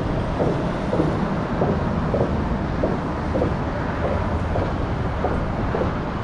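Steady low rumbling noise, with faint short ticks repeating about twice a second.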